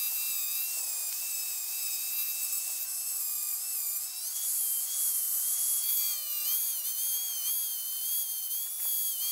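Dremel rotary tool spinning a vinyl plastic brush, a steady high whine as it scrubs the contact pads of a power seat switch clean. The pitch steps up about four seconds in and then wavers as the brush is worked against the pads.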